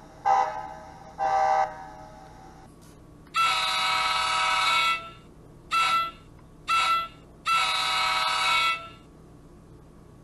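K5 air horn sounds from model-locomotive sound decoders, played through small onboard speakers. There are two short blasts, then after a pause the ESU LokSound 5 ALP45DP profile's horn sounds through the Atlas ALP45DP model's factory speaker: a long blast, two short ones, then another long one.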